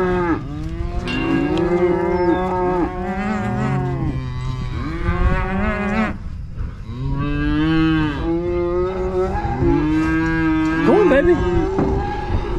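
Beef cows and calves mooing over and over, in long overlapping calls, some deep and some higher-pitched. The cows and calves are calling to each other as mothers check on their babies after being turned out to pasture.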